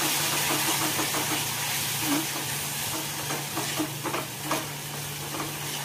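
Tomato-chilli sauce sizzling in an aluminium kadhai on a low gas flame while a silicone spatula stirs it, with a steady hiss and scattered soft scrapes and taps against the pan.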